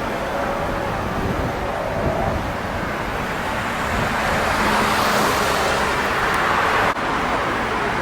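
City street traffic noise, with a vehicle passing that is loudest about five seconds in. The sound drops out for a moment near the end.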